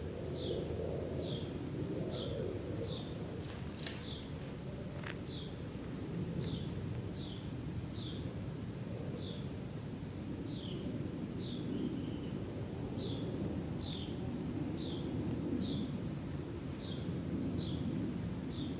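A small bird repeating a short, high, downward chip call about once a second, over a steady low background rumble, with one sharp click about four seconds in.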